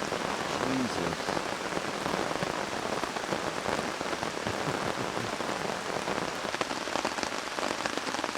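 Heavy rain coming down steadily, a constant hiss with many small sharp drop hits. Proverbially pissing down.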